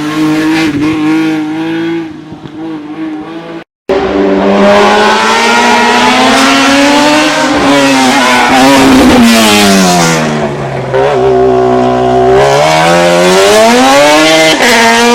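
Racing car engine driven hard on a slalom hill course, its revs rising and falling. About four seconds in, a sudden break gives way to a much louder, closer run, where the revs drop for a few seconds and then climb again.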